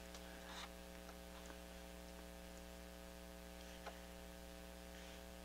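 A faint, steady electrical hum with a handful of light ticks as multimeter test probes and thin tonearm wires are handled during a continuity check.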